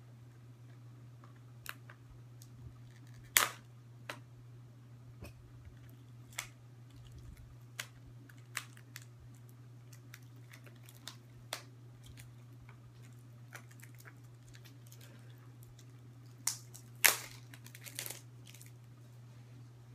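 Hands handling a plastic movie disc case and its packaging: scattered light clicks and taps, with two sharp snaps, one about three seconds in and one near the end, over a steady low hum.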